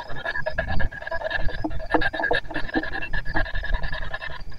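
P-SB7T spirit box sweeping the AM radio band in reverse, giving rapid, choppy bursts of static and broken radio fragments.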